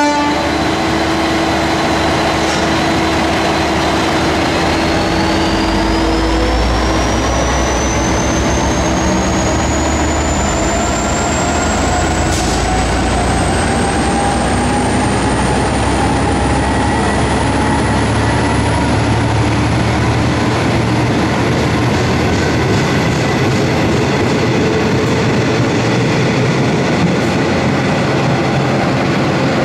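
V/Line N Class diesel-electric locomotive, an EMD two-stroke V12, pulling a loco-hauled passenger train away from the platform. The engine runs under load with several whines climbing steadily in pitch as the train gathers speed, and a deep rumble builds as the carriages roll past.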